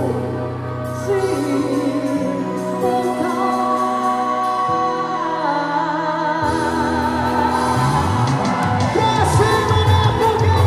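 Song with a sung melody over held accompanying notes; a steady low beat comes in about eight seconds in.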